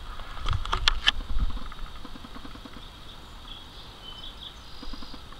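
A quick run of sharp knocks about half a second to a second in, over a low rumble, then faint high bird calls later on.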